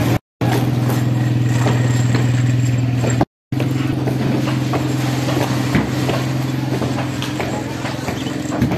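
Motorcycle rickshaw engine idling close by, a steady low drone that breaks off twice for a split second.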